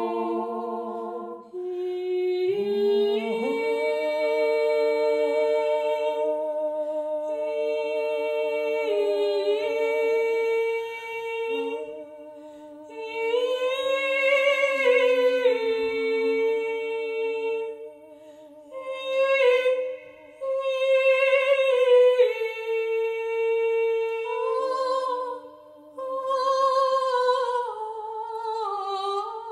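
Three women's voices singing wordless long held notes a cappella in improvised close harmony. The chord shifts every few seconds, with short breaks between phrases.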